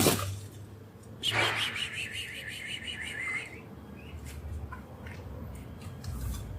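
A bird's rapid warbling chirp trill lasting about two seconds, starting about a second in, after a sharp click at the very start.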